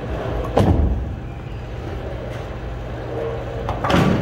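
A bowling ball lands on the wooden lane with a thud about half a second in, then rolls with a steady low rumble. Near the end there is a louder crash as it hits the pins.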